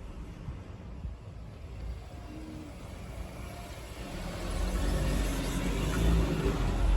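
A road vehicle going by: a low rumble that swells from about four seconds in.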